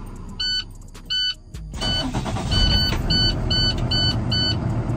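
Box truck's dashboard warning chime dinging over and over. About a second in the starter cranks briefly, the engine catches, and it settles into a steady low idle under the chime, which keeps dinging faster. The truck has just had its batteries replaced.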